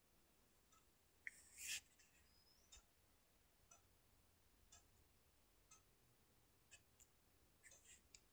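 Near silence: room tone with a faint tick about once a second, and a short hiss-like rustle about a second and a half in.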